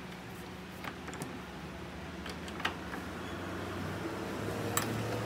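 A few scattered light clicks and taps of a motor rotor with its bearing being handled on a steel bench vise, over a steady low hum. A faint steady tone comes in about four seconds in.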